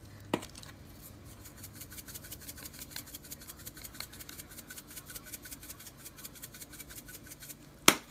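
Spice grinder twisted by hand, grinding black pepper: a steady quick run of small ratcheting clicks, several a second. A sharp knock comes just after the start and a louder one near the end.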